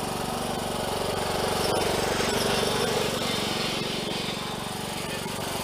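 Small engine of a 19-horsepower John Deere riding lawn mower running steadily while the mower is driven around. It gets a little louder about one and a half seconds in and eases back toward the end.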